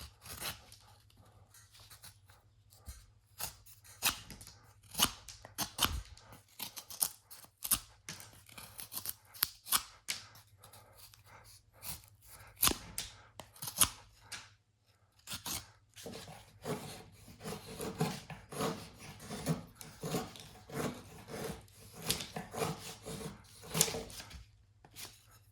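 A freshly sharpened kitchen knife shaving slivers off a piece of pine, in a run of irregular sharp scraping cuts. The strokes come closer together and run on more continuously in the second half.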